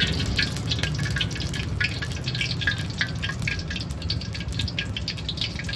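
Hot oil crackling and spitting in a carbon-steel wok, in quick irregular pops, over a steady low rumble.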